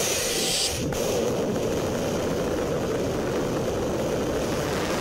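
Steady roar of a rocket motor as a missile launches from its silo, an unbroken noise with no rise or fall in level; a brighter hiss on top cuts off about a second in.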